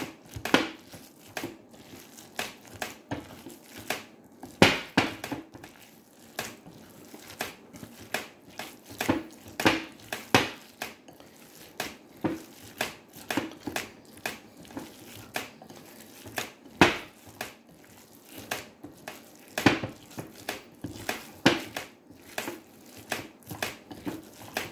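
Bare hands kneading and squeezing raw minced beef stuffing in a glass bowl: irregular short squishing and crackling noises, some louder than others.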